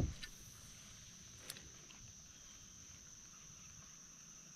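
Faint outdoor ambience with a steady, thin, high-pitched insect drone. A short knock comes right at the start, and a small click about a second and a half in.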